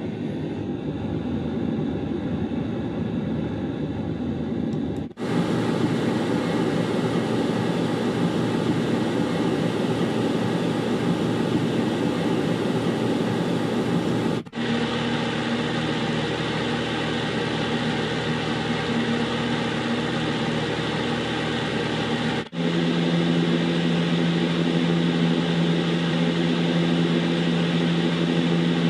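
Steady mechanical noise-masking drones from a white noise machine: a hum over hiss that cuts to a different drone three times, about five, fourteen and twenty-two seconds in. The last drone carries a strong low hum.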